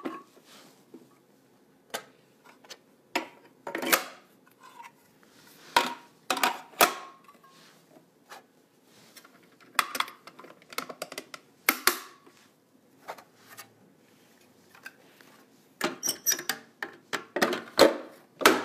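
Parts of a Tribest Greenstar Elite twin-gear slow juicer being fitted back together: irregular hard clicks, knocks and clatters in clusters, busiest near the end.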